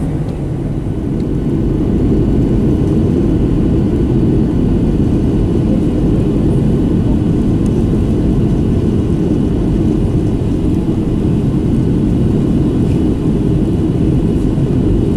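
Boeing 737-800's CFM56-7B jet engines and rushing air heard inside the passenger cabin: a loud, deep, steady drone that gets louder about two seconds in, then holds.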